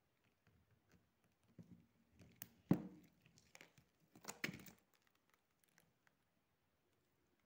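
Handling noises from a handbag being picked up and moved over a plastic-covered surface: light crinkling and small clicks, with two louder knocks a couple of seconds apart near the middle.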